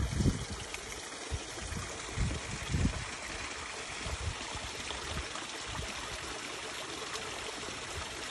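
Small shallow stream trickling and running steadily, with a few low bumps on the microphone in the first three seconds.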